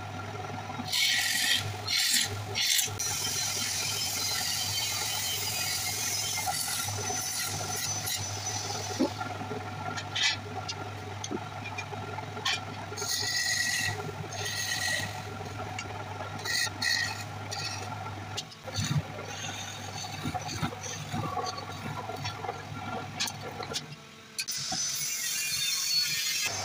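Electric wood lathe humming steadily while a hand-held turning chisel cuts into the spinning wooden blank in repeated scraping, hissing passes, with a few sharp clicks of the tool. The cutting noise stops near the end as the lathe hum drops.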